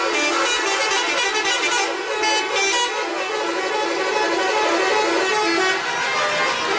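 Indonesian 'telolet' bus horn: a multi-tone musical horn playing a continuous run of changing notes.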